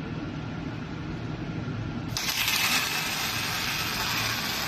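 A carrier roller automatic welding machine strikes its welding arc about two seconds in. The low machine hum gives way to a loud, steady hiss of the arc burning on the roller.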